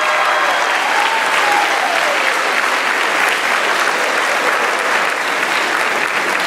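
Audience applauding steadily, with a cheering voice rising and falling over the clapping in the first couple of seconds.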